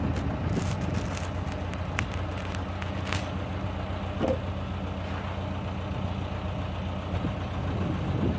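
Diesel engine of heavy equipment idling steadily, with a few sharp clicks and knocks in the first three seconds.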